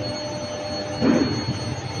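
Steady industrial machinery noise with a constant hum. About a second in, a brief loud screech drops in pitch.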